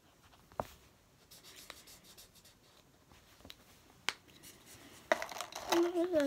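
Marker pens scratching faintly on paper as the girls colour, with two sharp clicks about half a second and four seconds in. Near the end a girl starts humming a tune.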